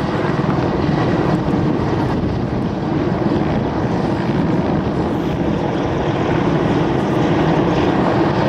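Two military helicopters, an Mi-24 among them, flying past overhead in formation: a steady, loud rotor and turbine-engine noise.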